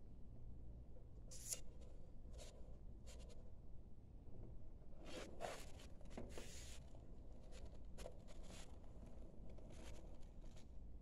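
Hands rubbing and brushing over a book-shaped tea box as it is turned over and examined. There are short scratchy strokes every second or so, with a longer stretch of rubbing about halfway through, over a faint steady low hum.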